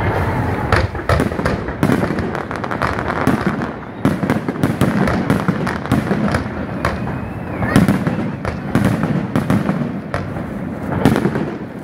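Aerial fireworks shells bursting overhead in quick succession, a dense, continuous run of bangs and crackles.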